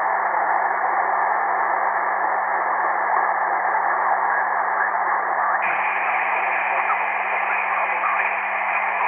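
Shortwave receiver in SSB mode tuned to a weak single-sideband signal: steady band-limited static hiss with the signal buried in it. A little past halfway the hiss turns brighter as the receiver's audio filter is switched wider, with a steady low hum underneath throughout.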